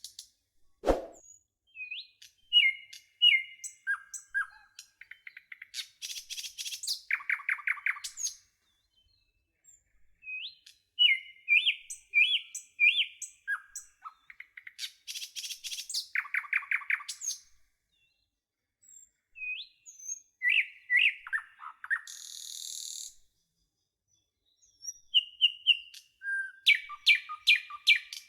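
Birds chirping and calling in quick repeated phrases and trills, with short rising and falling whistled notes, coming in clusters separated by brief gaps.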